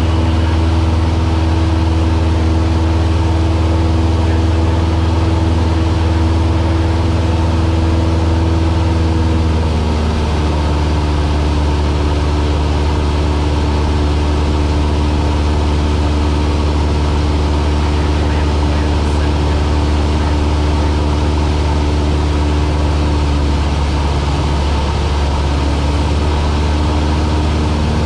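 A Cessna's piston engine and propeller droning steadily, heard from inside the cabin. About ten seconds in, the engine note drops to a lower pitch as the revs come down.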